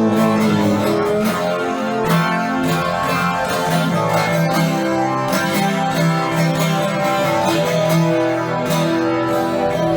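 Instrumental break of a song: a strummed acoustic guitar over held backing notes, with no singing.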